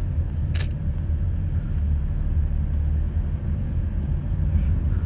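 Steady low rumble of a moving car, heard from inside the cabin through a phone's microphone, with one short click about half a second in.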